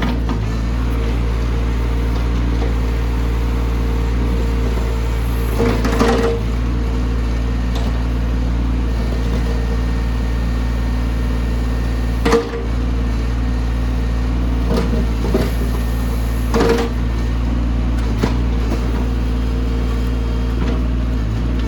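Mini excavator engine running at a steady speed, with a few short knocks and clanks, about 6, 12 and 17 seconds in, the one near 12 seconds the loudest.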